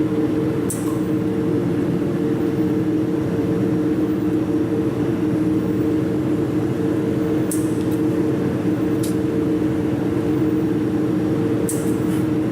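Jewelry laser welding machine running with a steady two-tone hum. A few short, sharp high clicks are scattered through it: about a second in, twice in the middle, and a quick pair near the end.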